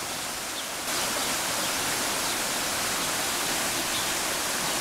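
Shallow stream running over rocks, a steady rush of flowing water.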